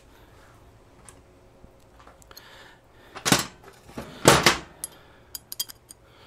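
Small metal fender bolts and hardware rattling and clinking in the hand: two louder rattles about a second apart roughly three seconds in, then a quick string of light metallic clicks.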